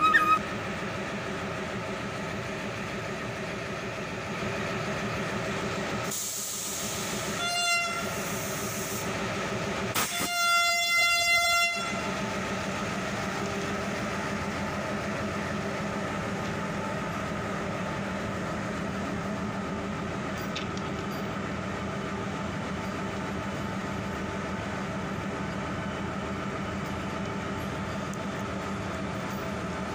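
Vande Bharat Express electric train set approaching and running past with a steady hum and rumble. Its horn sounds about six seconds in, then again louder about ten seconds in for under two seconds.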